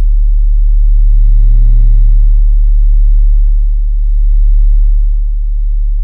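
Sonified Sun data from the SOHO observatory: a loud, deep, steady drone, rendering the Sun's plasma flow as sound, with faint high steady tones above it and a slight swell about two seconds in.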